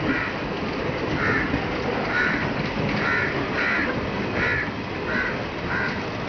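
A crow cawing over and over, about one call a second, over the steady noise of passenger coaches rolling slowly past.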